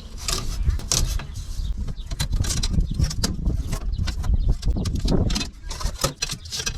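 Old window screen mesh being handled: irregular crinkling, rustling and scraping, with many short crackles over a low rumble.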